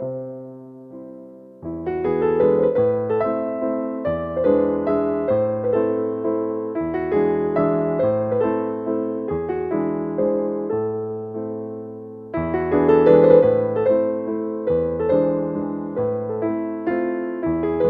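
Slow, gentle piano music playing sustained chords and melody notes. A chord dies away at the start, and playing resumes about a second and a half in. There is another brief fade a little before the last third, and then a louder passage.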